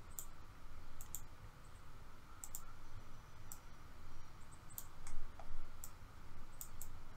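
Computer mouse buttons clicking: scattered sharp clicks, some in quick pairs, roughly once every second or so, over faint steady hiss.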